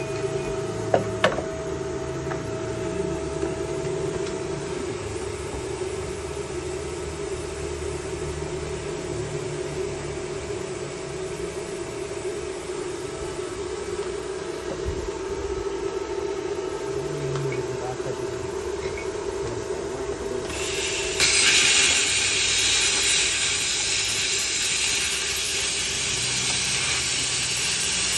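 Izumi plasma cutter running with a steady hum, a few sharp clicks about a second in. About 21 s in the torch fires and a loud, even hiss of the cutting arc and air sets in and holds until the end.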